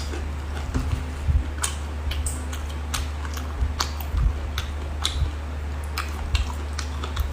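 Wet squishing and scattered sharp clicks as cooked sea hare is handled and eaten with chopsticks, over a steady low hum.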